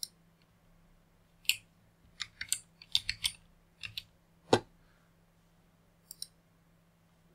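Computer keyboard keystrokes: a run of a dozen or so irregular typing clicks, the loudest about four and a half seconds in. A pair of quick clicks follows about six seconds in, a mouse button being pressed.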